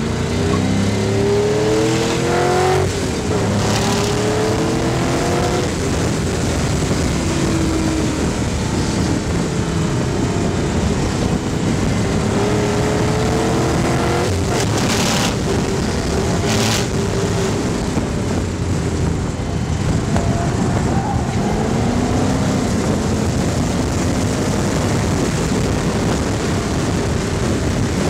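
GM 5.3-litre LS V8 (LM7) of a race car at full throttle, with heavy wind rush. In the first few seconds the engine note climbs and drops back through gear changes, then it runs at fairly steady revs. Two short loud bursts of noise come a little past halfway.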